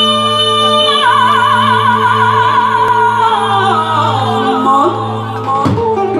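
Live female vocalist holding a long high note that breaks into wide vibrato about a second in, then steps downward in a run. A sustained low accompaniment chord sounds beneath her and cuts off shortly before the end.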